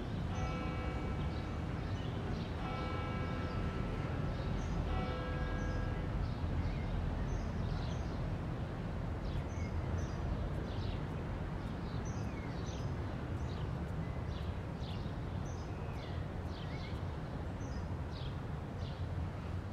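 Outdoor ambience of birds chirping over a steady low rumble. In the first six seconds a horn sounds three long, steady blasts, each a chord of several notes.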